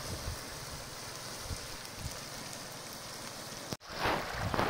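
Steady rush of a shallow river running over a stony bed. After a sudden break about four seconds in, irregular splashing of feet wading through the shallow water.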